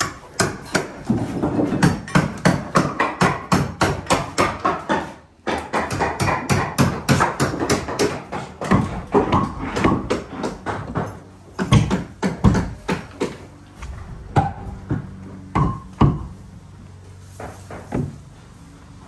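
Rapid, regular knocking, about four sharp blows a second, that breaks off for a moment about five seconds in and resumes. The blows then thin out and fade, with only a few scattered knocks near the end.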